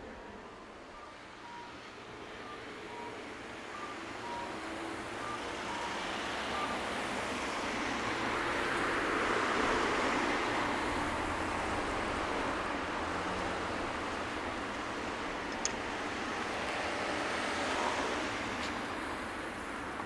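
Road traffic passing a tram stop, with tyre and engine noise swelling to a peak about halfway through and staying up. Faint repeated electronic beeps sound during the first few seconds.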